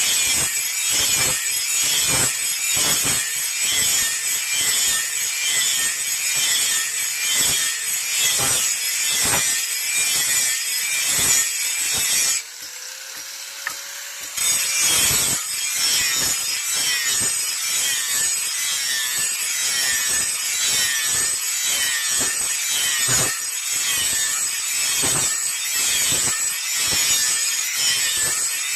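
Rhythmic back-and-forth rasping of a hand tool worked on iron, about two strokes a second. It stops for about two seconds near the middle, then carries on.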